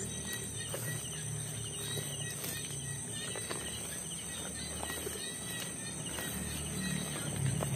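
Night insects in a rice paddy, crickets trilling steadily at a high pitch with repeated short chirps, over scattered rustles and clicks of movement through grass.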